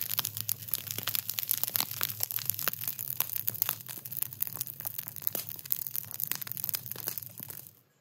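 Burning straw crackling and popping rapidly and irregularly, over a low steady rumble; it cuts off abruptly near the end.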